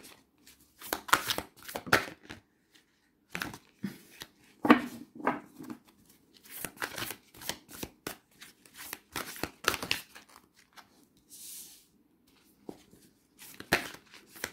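A deck of oracle cards being shuffled by hand, the cards slapping and sliding against each other in irregular bursts with short pauses.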